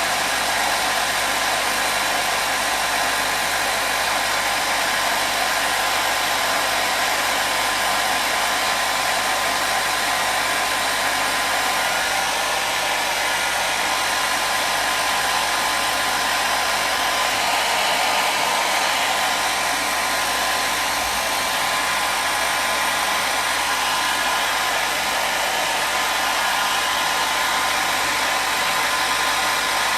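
Hair dryer running steadily, a continuous airy whoosh with a faint whine from its motor and fan.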